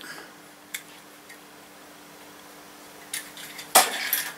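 Small metal diecast toy cars clicking and clinking as they are handled and set down, with a few light clicks early and a louder short clatter near the end, over a low steady hum.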